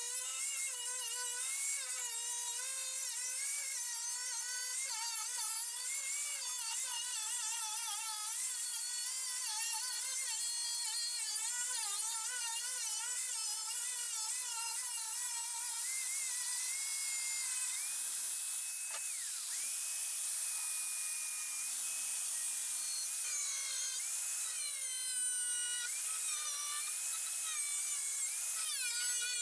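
Angle grinder cutting 2.3 mm steel plate: the motor's whine wobbles up and down as the disc bites and eases in the cut, running steadier and higher in pitch in the later part.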